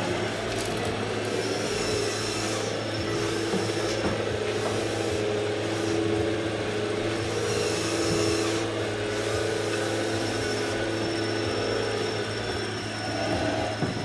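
Radio-controlled model Volvo excavator at work, its motors whining in several stacked tones that shift in pitch as it digs and swings, over a steady low hum.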